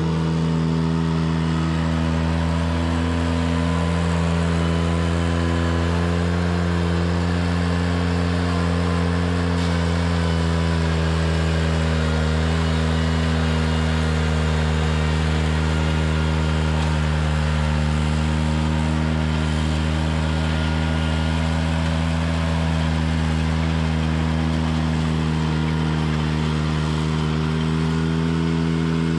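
Ventrac 4520 compact tractor's engine running steadily under throttle at a nearly constant pitch.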